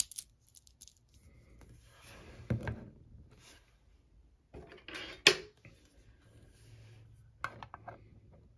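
A small metal tin of ferrite magnetic pebbles is set down on a table with a dull knock. Its metal lid is then put on with one sharp, loud click. A few light clicks follow as the closed tin is handled.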